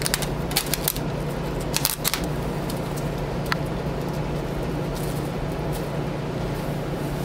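Clear protective plastic film crackling as it is peeled off a printer's glossy top panel, with a cluster of sharp crinkles in the first two seconds and a few scattered ticks after. A steady low hum runs underneath.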